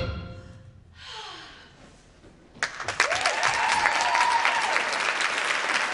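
Performance music fades out, and after a quiet lull of about two seconds an audience breaks into applause, with one long high cheer rising and falling over the clapping.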